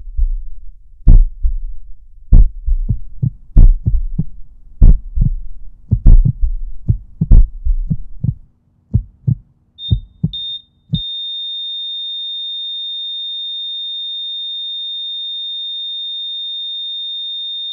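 Heartbeat sound effect: deep double thumps about every 1.2 seconds that grow weaker and more irregular. They are followed by a few short high beeps and then a heart monitor's flatline, one steady high tone held unbroken from about 11 seconds in, the sign that the heart has stopped.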